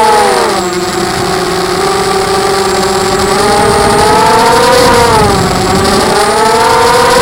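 ZMR 250 FPV quadcopter's electric motors and propellers whining in flight. The pitch drops just after the start, climbs again about four to five seconds in, dips once more, and rises near the end as the throttle changes.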